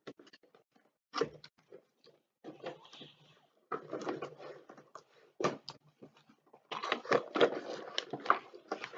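Cardboard box and its packaging handled and opened by hand: scattered clicks, scrapes and rustles that grow busier near the end.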